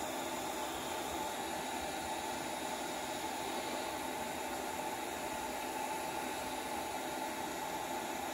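Steady fan noise: an even hiss with a faint hum.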